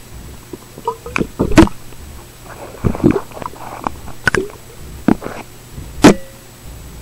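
Irregular muffled knocks and thumps on a waterproof compact camera hanging underwater on a rope, as turtles bump into it while feeding. The two loudest knocks come about one and a half seconds in and about six seconds in.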